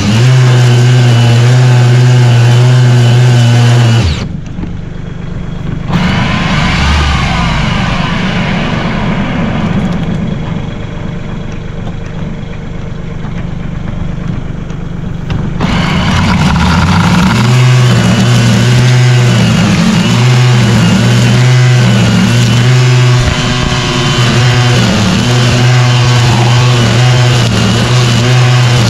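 Mahindra 1626 tractor's three-cylinder diesel engine running at steady working speed with a loud, even hum. For about twelve seconds, starting around four seconds in, the engine hum drops away and a quieter, different sound takes over, then the engine returns.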